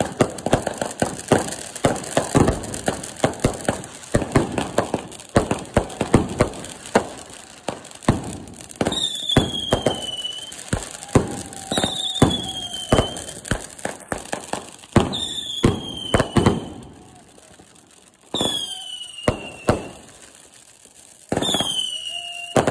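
Consumer firework fountains crackling and popping densely for about eight seconds. Then five whistling shots go off about three seconds apart, each a pop followed by a whistle of about a second and a half that falls slightly in pitch.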